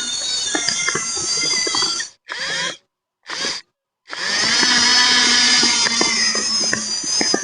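Electric drive motors and gearboxes of a radio-controlled bulldozer whining, cut off sharply twice by short silences; about four seconds in the whine rises in pitch and then runs steady and loud.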